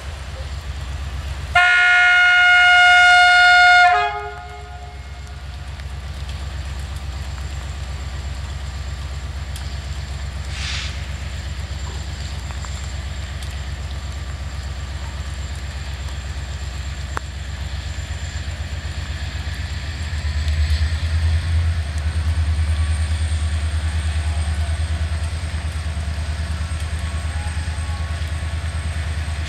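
Diesel locomotive's multi-tone horn sounding one blast of about two and a half seconds, over the steady low rumble of the locomotive's diesel engine, which grows louder about twenty seconds in.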